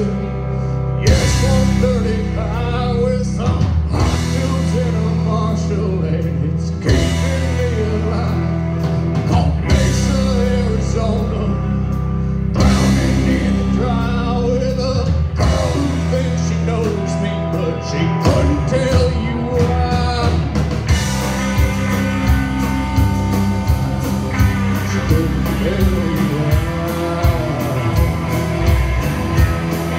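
Live rock band playing: a male voice singing over electric and acoustic guitars, bass and drum kit. About two-thirds of the way through the drums settle into a quick, even beat.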